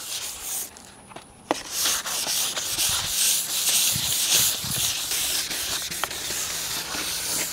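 Painted plastic bumper cover being hand-sanded with 400-grit sandpaper: quick back-and-forth scratchy strokes that scuff off the clear coat before painting. There is a short lull about a second in.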